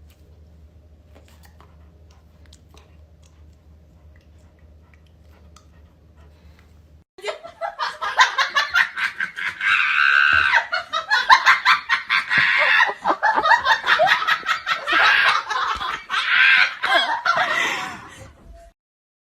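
Loud, hearty laughter in rapid fits, breaking out suddenly about seven seconds in after a low steady hum, then cutting off abruptly near the end.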